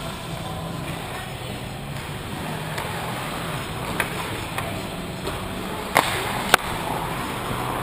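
Ice hockey rink sounds heard from the goal: a steady arena background with sharp clacks of sticks on the puck, one about four seconds in and two louder ones near the end, half a second apart.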